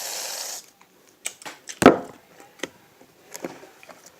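Aerosol can of shaving foam spraying with a steady hiss that cuts off about half a second in. Scattered light clicks and knocks follow, the loudest about two seconds in.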